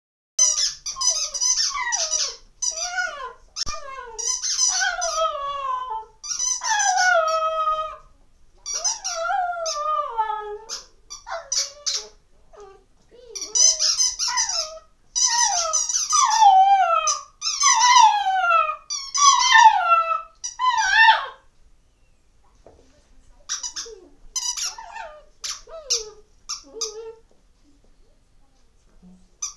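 Dog chewing a squeaky toy, squeaking it rapidly in bursts of a few seconds, while whining along in long falling notes. The bursts thin out and grow quieter over the last several seconds.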